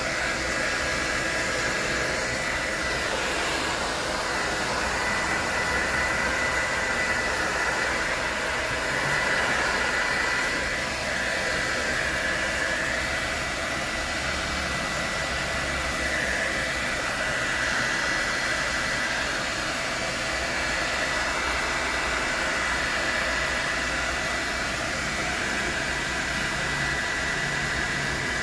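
Handheld hair dryer running steadily, a rush of blown air with a thin high whine from its motor, as it dries a wet cat's fur.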